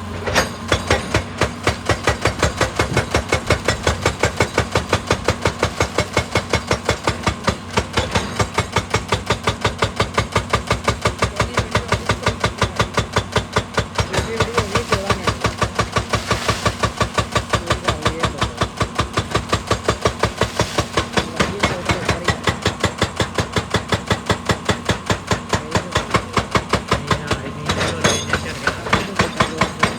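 An excavator's hydraulic rock breaker hammering rock in rapid, regular blows, several a second, over the diesel engine's steady hum. The hammering starts just after the opening and pauses briefly near the end.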